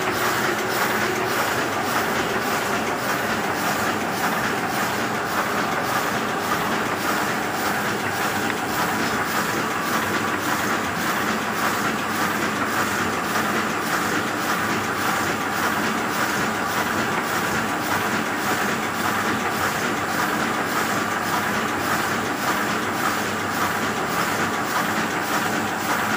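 Heidelberg 46 offset printing press running steadily, a continuous mechanical clatter with an even beat of about two strokes a second as it feeds and prints sheets.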